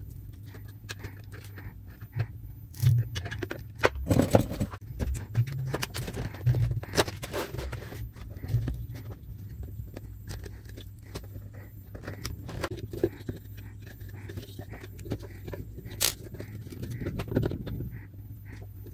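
Irregular clicks, knocks and scraping of hardware and tools being handled while a power supply adapter is taken apart and its transformer moved, over a steady low hum.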